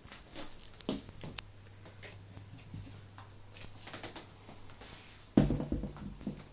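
Small knocks and handling rustles, with one louder thump about five seconds in, over a faint low steady hum.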